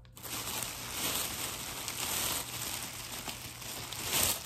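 Steady rustling and crinkling of plastic packaging as squishies wrapped in plastic are handled and rummaged through in the grab bag.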